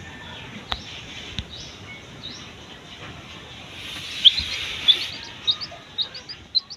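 Six-day-old chick peeping: short high chirps that start about four seconds in and come faster, roughly two a second, toward the end.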